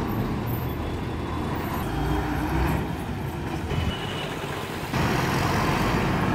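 Diesel engines of state transport buses running at low speed as the buses pull away and manoeuvre, a steady low rumble that steps up louder about five seconds in.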